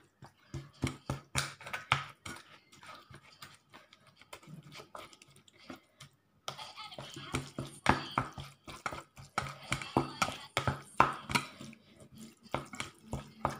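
Green plastic spoon stirring and pressing minced pork in a plastic bowl: quick, irregular taps and knocks of spoon on bowl with soft squishing of the wet meat, breaking off briefly about halfway.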